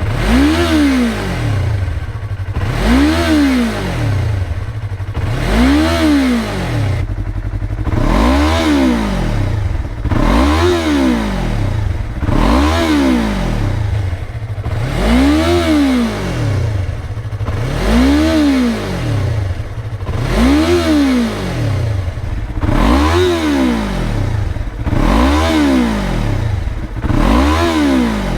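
Yamaha R3's parallel-twin engine through a newly fitted Akrapovič GP slip-on exhaust, blipped up from idle and falling back about once every two and a half seconds, a dozen revs in a row. The revs are held below 10,000 rpm.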